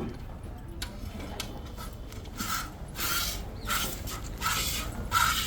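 A cow being milked by hand: about five short hissing squirts of milk into a pail, beginning about two and a half seconds in, roughly one every 0.7 seconds.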